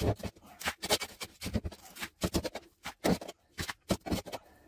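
Sand and gravel being scraped up from a rock crevice and scooped into a bucket: a quick, irregular run of scrapes and small clatters, several a second, that eases off near the end.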